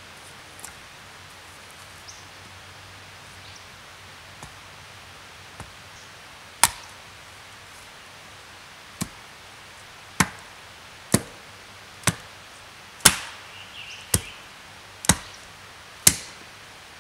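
Small wooden-handled axe chopping wood: a few faint knocks, then about nine sharp blows of the blade biting into the wood, the first about seven seconds in and then roughly one a second.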